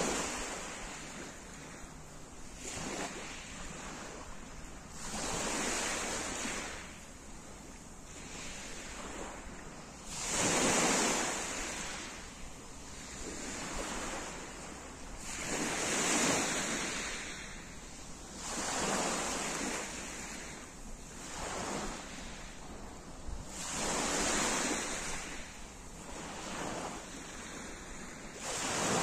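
Small sea waves breaking and washing up a pebble beach, a hissing surge every two to three seconds, the biggest ones about a third of the way and halfway through.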